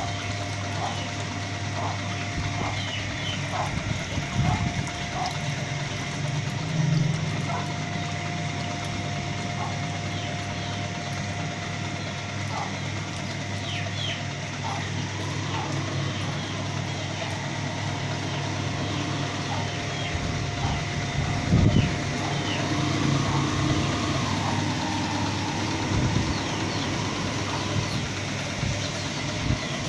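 A steady low motor hum with a faint steady whine above it, and short high chirps now and then. A few brief knocks stand out above the hum.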